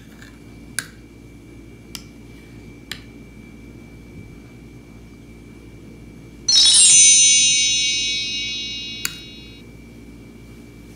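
A bright, shimmering chime sound effect about six and a half seconds in: many high tones struck together that fade away over about three seconds. Behind it runs a steady low hum, with a few sharp ticks before the chime and one after.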